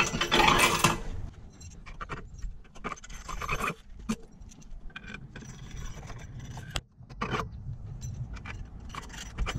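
Metal hardware clinking and jingling against the aluminum kayak launch's mounting bracket as bolts are handled and dropped in by hand, busiest in the first second, then scattered light clicks and knocks.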